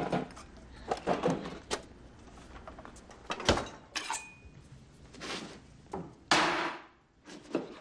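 Kitchen handling sounds: scattered knocks on wood, with one sharp knock about three and a half seconds in. A steel knife is drawn from a wooden knife block with a brief metallic ring, and a short rustling burst comes near the end.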